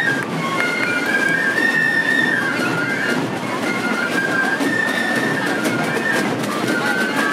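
Fife-and-drum band playing a march: a high fife tune moving in short steps over many parade drums beating together.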